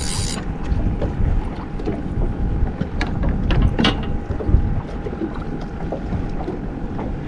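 Wind buffeting the microphone on a small fishing boat, with a faint steady hum underneath and a few light knocks about three to four seconds in.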